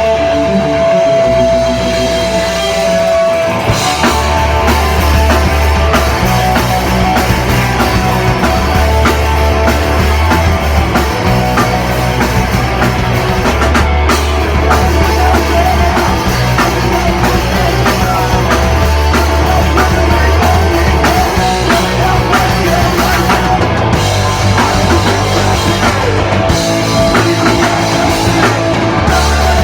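Loud rock music played on drum kit and amplified instruments, with a driving beat and a held note in the first few seconds.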